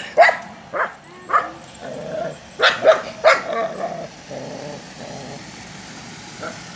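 Dog barking at a small cat: about six short, sharp barks over the first three and a half seconds, then quieter.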